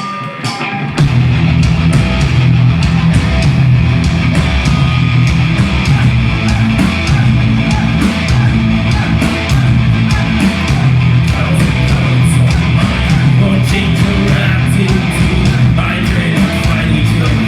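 Rock/metal band playing live: guitars, bass and drums come in loud together about a second in and keep a steady driving beat.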